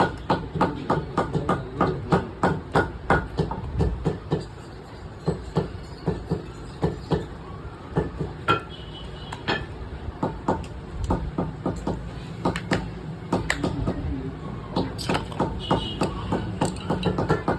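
Shoe-repair work on a rubber sole: repeated sharp taps and knocks, about three a second at first, thinning out in the middle and picking up again near the end.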